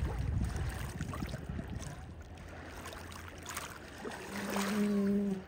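Lake water lapping and sloshing around a swimmer, with a low rumble in the first couple of seconds. Near the end a person's voice holds one steady hum for about a second.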